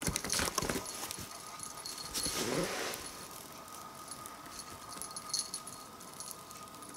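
A house cat pouncing and batting at a moth on foam floor mats: soft pats and scuffs with light jingling, and a short cat call about two and a half seconds in.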